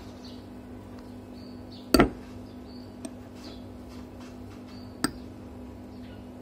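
A metal spoon knocking against a glass bowl: a sharp tap about two seconds in, a faint one a second later and another near five seconds, over a steady low hum.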